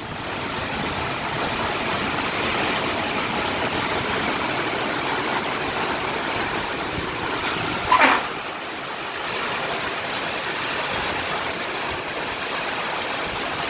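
Heavy rain pouring down steadily, with hail mixed in, in a storm with strong wind. A brief louder sound comes about eight seconds in.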